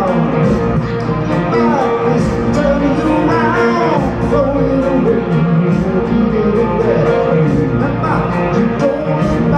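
Live rock band playing at full volume in a concert hall: electric guitar, bass, drums and keyboards, with a lead vocal over them.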